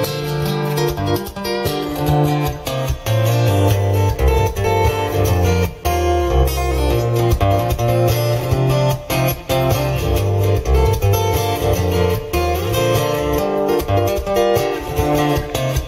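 Guitar music with strummed acoustic guitar and a bass line, played back from a cassette on a Pioneer CT-F1000 three-head cassette deck.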